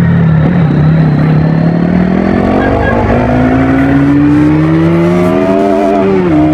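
Bajaj Pulsar NS200's single-cylinder engine on its stock exhaust, running at a steady note and then climbing slowly in pitch as it accelerates, with a brief dip and pick-up near the end.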